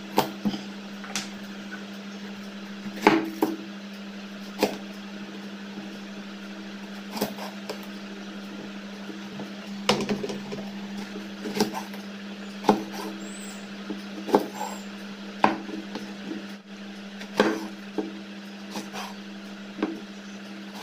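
Cleaver-style knife cutting brinjals into strips on a wooden chopping board: irregular sharp knocks of the blade on the wood, every second or two, over a steady low hum.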